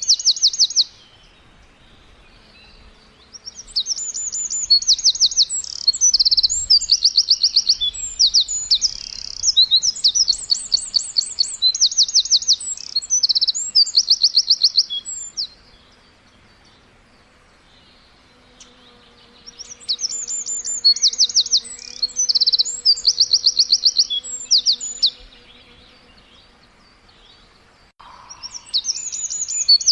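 Songbirds chirping in bouts of fast, high trills of rapidly repeated notes. Two long bouts are separated by a few seconds of quiet, and another burst comes near the end.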